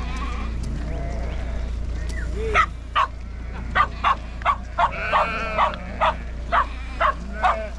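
A herding dog barks repeatedly and loudly, about two barks a second, starting about two and a half seconds in. Before that there is the low shuffle of the sheep flock moving along the road, with a bleat or two.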